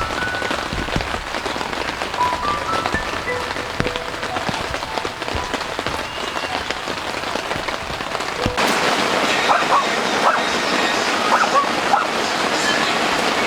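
Rain falling steadily, with many individual drops ticking. About eight and a half seconds in, the rain gets louder.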